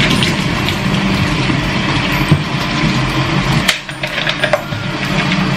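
Plastic bottle being handled, with crinkling and sharp clicks as its screw cap is twisted, over a steady low hum.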